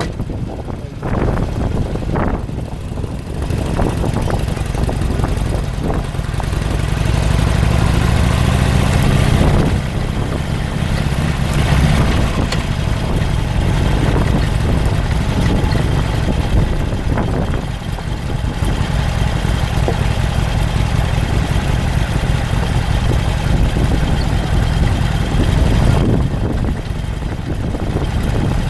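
A vehicle engine picking up speed, its pitch rising for a few seconds before dropping back about ten seconds in, then running steadily under a continuous rushing noise of travel.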